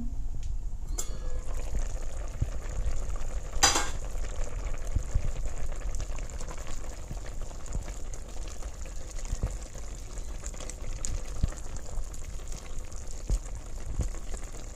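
Soup boiling in an uncovered pot, a steady bubbling and simmering that comes in sharply as the lid is lifted at the start. A single short clink about four seconds in.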